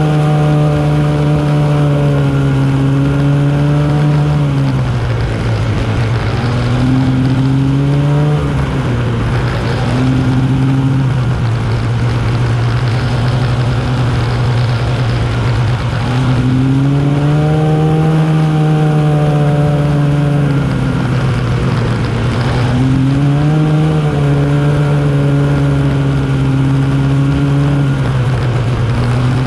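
Arctic Cat snowmobile engine running while the sled rides along the trail, its pitch falling as the throttle is eased off and rising again as it is opened. It drops about five seconds in, stays lower with short surges, climbs back past the halfway point, and dips and rises a few more times near the end, over a steady rushing noise.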